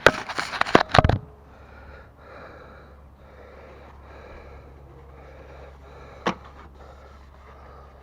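A quick burst of clattering knocks, then a person breathing close to the microphone, with a single click about six seconds in.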